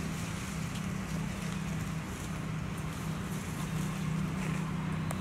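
Steady low hum of a distant motor, with a few faint ticks.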